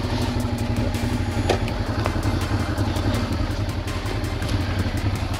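Honda Transalp's V-twin motorcycle engine running steadily at low revs, with one sharp knock about a second and a half in.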